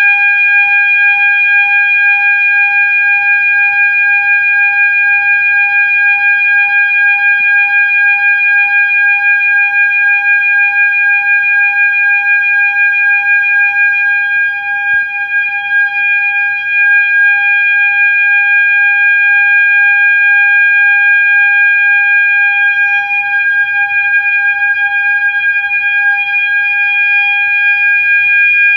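Fire alarm horn sounding one loud, steady, continuous tone, with a brief dip in loudness about halfway through.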